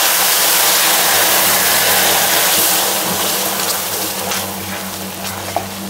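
Dark brown caramelized sugar syrup hissing and sizzling loudly as cold water hits it and is stirred in, the hiss dying down after about three seconds. A steady low hum runs underneath.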